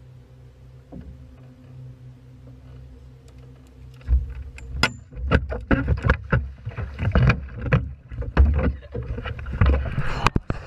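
A low steady hum, then from about four seconds in a run of loud splashes and sharp knocks against a boat's side as a person goes overboard and thrashes at the hull.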